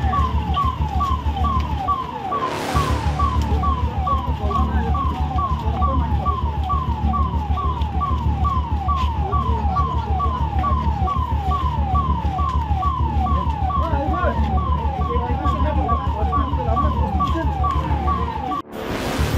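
Electronic emergency-vehicle siren sounding in quick falling sweeps, about two and a half a second, over a steady low hum. It cuts off abruptly near the end.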